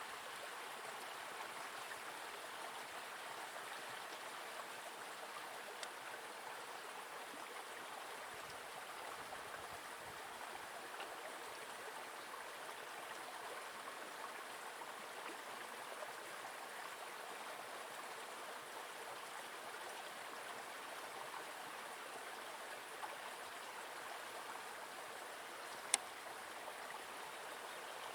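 Steady rush of water from a small forest stream, an even hiss with no pauses. A single sharp click sounds about 26 seconds in.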